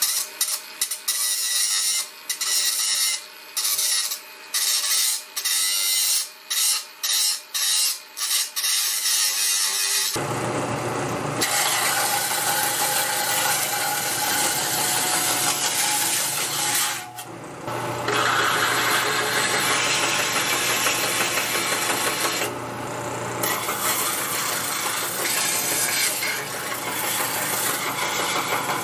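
An angle grinder with a flap disc whines steadily while grinding an aluminum bronze casting; the grinding noise breaks off about ten times as the disc is lifted and set back on the metal. About ten seconds in, this gives way to a belt sander running with a low hum as the cast bronze hatchet head is pressed against the belt, with a brief dip partway through.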